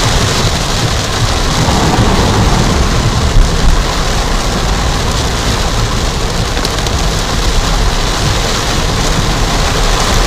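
Torrential rain beating on a car, a steady loud hiss, with the car's low rumble underneath.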